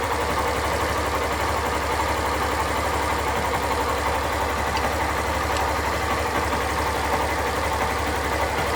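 Yamaha Crosser XTZ 150's single-cylinder engine idling steadily with an even firing rhythm.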